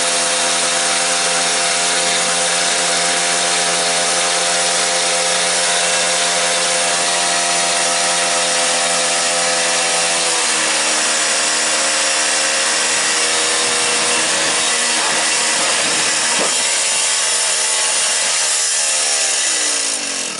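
Small gas engine of a quarter-scale RC truck idling steadily and loudly. About halfway through, its pitch dips slightly and wavers. Near the end it slows and stops.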